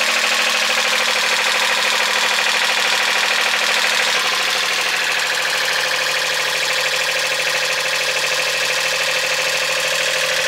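Sailboat's inboard engine running steadily, with a fast, even beat.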